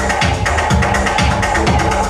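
Electronic dance music in a house/techno DJ mix, with a steady deep kick drum about twice a second under layered synth tones.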